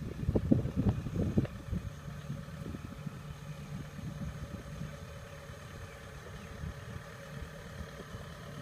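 Diesel engine of a Kubota combine harvester running steadily, with a low hum. A few loud low thumps come in the first second or so.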